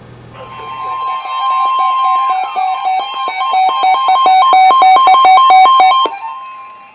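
Loud electronic alert tone: a steady high beep that gives way to rapid beeping alternating between two pitches, with a short falling sweep. It cuts off suddenly about six seconds in.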